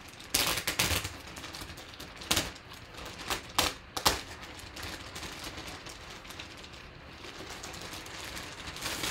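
Clear plastic poly bag crinkling and crackling as hands handle it and pull it open around a folded jersey. There are several sharp crackles in the first four seconds and another near the end, with softer rustling between.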